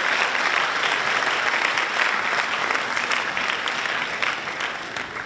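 An audience applauding, a dense spread of hand claps that thins and fades away near the end.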